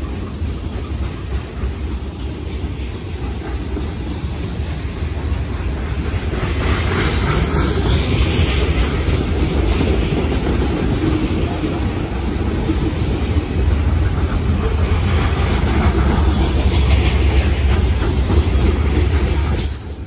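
Freight cars of a long CSX manifest train, tank cars and covered hoppers, rolling past close by: a steady, loud rumble of steel wheels on the rails. The sound drops suddenly near the end.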